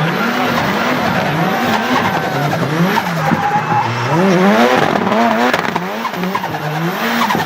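Turbocharged Nissan 200SX engine revving up and down again and again while its tyres squeal through a drift.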